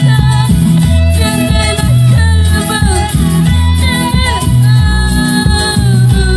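Live band music for a Spanish-language worship song: a woman singing over keyboards and drums, with a prominent bass line.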